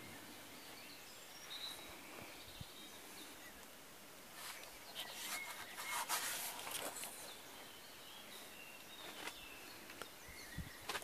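Quiet outdoor background with a few faint, short, high chirps scattered through it and a stretch of rustling and light clicks around the middle.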